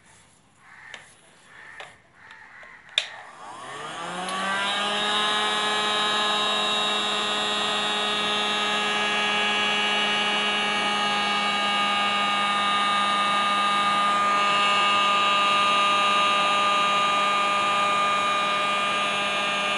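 A few light knocks of a spoon on the tawa, then a sharp click about three seconds in as a small handheld hot air gun is switched on. Its fan motor spins up with a rising whine over about a second and then runs steadily, blowing hot air onto a pappadam to puff it.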